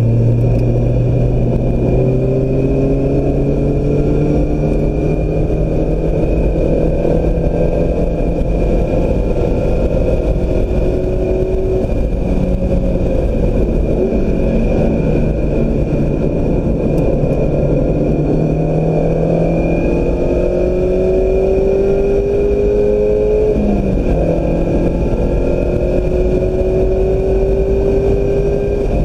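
2016 Mazda MX-5 Miata's four-cylinder engine under hard acceleration, its pitch climbing through each gear and dropping at several gear changes, with a rushing wind and road noise and a thin steady high whine.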